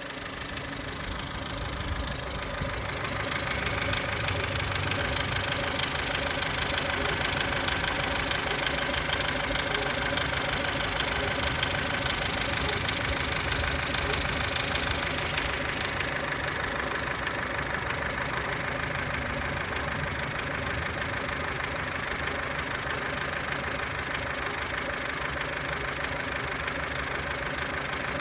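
2003 Ford Fusion's 1.4 petrol engine running with a fast, steady ticking from the timing-belt end. The owner has ruled out the auxiliary drive belt and water pump as the cause. The sound grows louder over the first few seconds.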